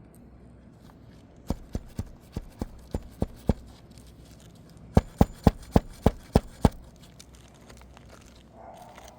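Hammer driving roofing nails into an asphalt shingle: two quick runs of sharp strikes, about four a second, the second run louder.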